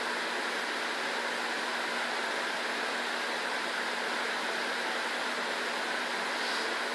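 Steady background hiss with a faint low hum underneath, unchanging throughout.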